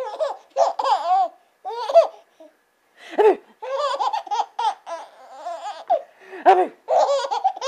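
Baby giggling and laughing in repeated short bursts.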